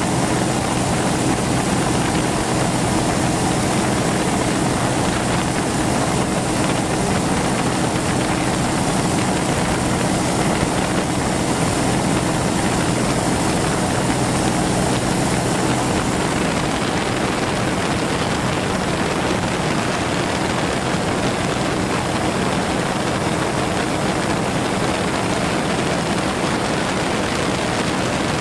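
A steady engine drone with a loud, even rushing noise over it, with no change in speed. The engine's low hum fades out a little past halfway, leaving mostly the rush.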